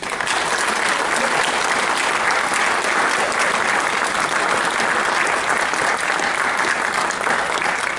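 Audience applauding, breaking out suddenly and holding steady throughout.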